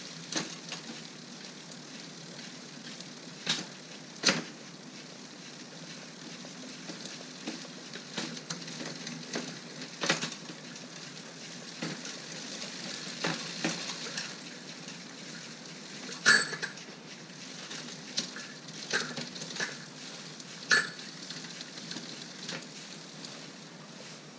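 Bicycle drivetrain being run through the gears: the chain running steadily over the sprockets, with several sharp clicks and clunks scattered through as gears change. The rider puts the trouble down to a chain that is too loose and skips over second gear.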